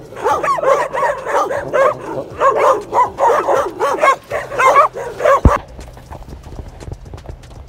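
A pack of stray dogs barking and yipping over one another in quick, repeated calls. About three-quarters of the way through they cut off suddenly, and fainter, evenly spaced footfalls of a runner on a dirt track follow.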